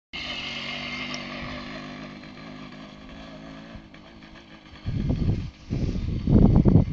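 Karpaty moped's small two-stroke engine running steadily, growing fainter as the moped rides away across the lot. About five seconds in, loud wind buffets the microphone in gusts and drowns it out.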